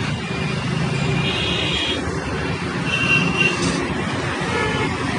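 Busy road traffic passing close by: motorbikes, scooters, buses and cars, a steady noisy rush, with a couple of brief high-pitched tones over it, about a second in and about three seconds in.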